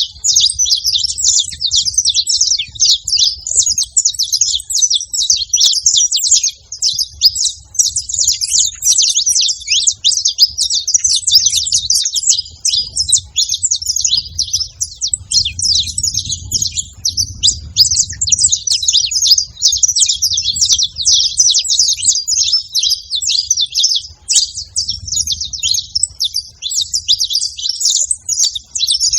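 Several saffron finches calling and singing at once, a dense, unbroken chatter of quick high chirps.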